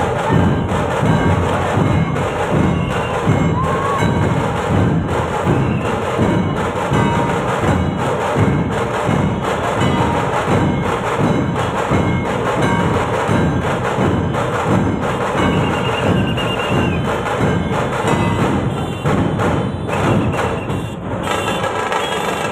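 Dhol-tasha troupe playing: many large barrel dhol drums beaten with sticks in a steady, driving rhythm, with sharp stick strokes over the deep drum beats.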